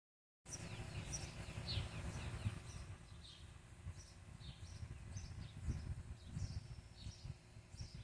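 Small birds chirping outdoors: many short, high calls one after another, over an uneven low rumble.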